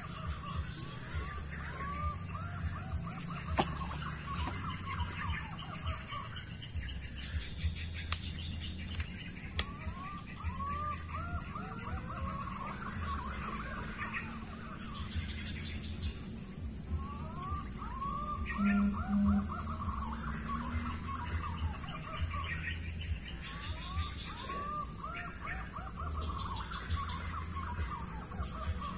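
Wild birds calling in repeated runs of short, arching chirps that come every several seconds, over a steady high-pitched hum.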